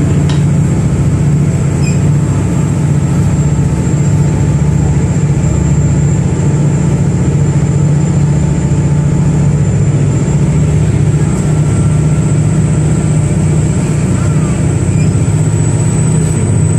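Steady low drone of the SuperCat fast ferry's engines heard inside the passenger cabin while under way, with a faint high whine running over it.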